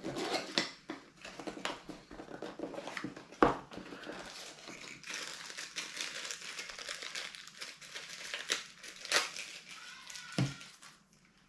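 Smartwatch box packaging being rummaged through: crinkling wrap and cardboard handled, with scattered clicks and a sharp knock about three and a half seconds in, dying away near the end.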